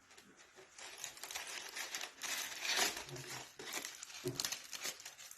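Toy accessory packaging being crinkled and torn open by hand, an irregular rustling that is loudest around the middle.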